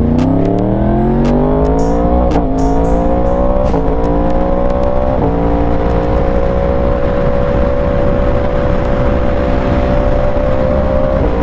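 Yamaha R1's crossplane inline-four pulling away hard: the engine note climbs, drops with three quick upshifts about two, four and five seconds in, then holds a steady pitch at cruising speed. Wind rush on the microphone runs under it.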